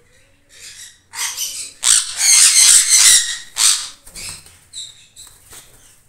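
Sun conures giving a run of harsh, shrill screeching calls in short bursts, loudest and most continuous about two to four seconds in.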